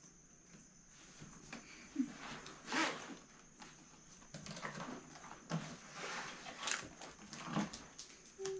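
Faint, scattered rustling and scratching with a few soft knocks: hands handling paper and small objects, over a faint steady high whine.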